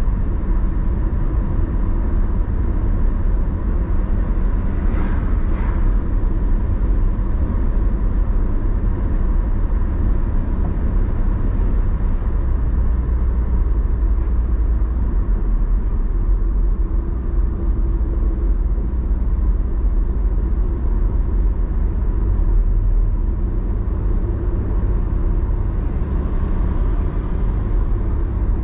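Steady low rumble of a car's engine and tyre road noise heard inside the cabin while driving, with two short hissing sounds about five seconds in.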